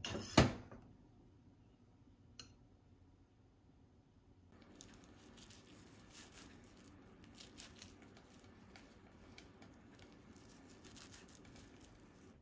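A single sharp knock about half a second in, then, after a few seconds of near quiet, soft rustling with small crinkling and squishing handling sounds from hands working nerikiri white-bean-paste dough.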